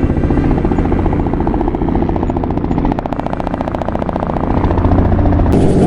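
An engine running steadily with a rapid, even pulse that grows more distinct about halfway through. The sound changes abruptly about five and a half seconds in.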